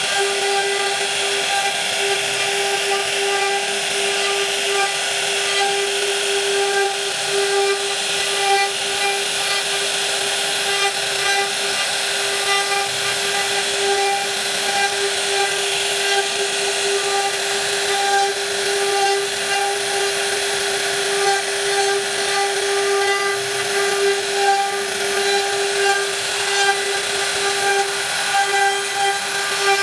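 Woodworking power tool running continuously: its motor holds a steady high whine over a dense hiss, with small swings in level.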